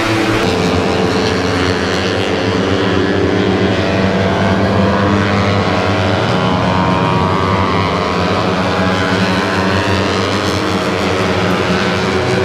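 Open-piped underbone racing motorcycles, Suzuki Raiders and Yamaha Snipers, racing on the circuit, their engines revving loud and high. Several engine notes overlap, rising and falling in pitch as the bikes pass.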